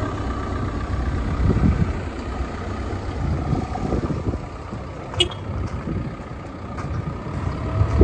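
Cat 420F backhoe loader's diesel engine running just after starting, with a faint steady whine over it and one sharp click about five seconds in.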